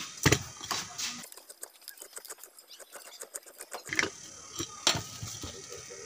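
Metal knocks and clinks from a ceiling fan motor being taken apart by hand, its rotor housing and stator handled and set down. The loudest knock comes about a quarter second in, followed by a run of light ticking and a few more knocks.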